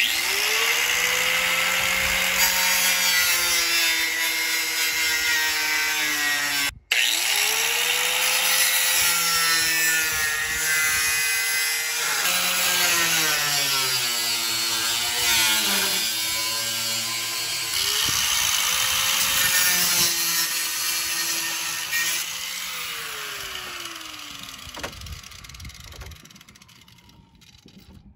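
Corded angle grinder cutting through plastic grille supports. The motor spins up to a steady whine several times, drops in pitch as the disc bogs into the plastic, and winds down with a falling whine near the end.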